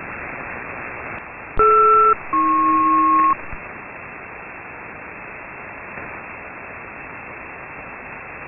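SELCAL selective-calling signal received on an HF aircraft radio channel in upper sideband, over steady static hiss. About a second and a half in, one two-tone chord sounds for about half a second, then after a short gap a lower two-tone chord sounds for about a second: the coded tone pair a ground station sends to alert one aircraft's receiver.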